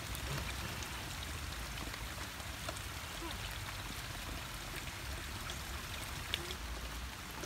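Steady rain, an even hiss with no clear pattern, and a faint tick about six seconds in.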